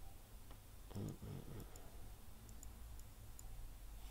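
A few faint, sparse computer mouse clicks over quiet room tone, with a brief low murmur of a voice about a second in.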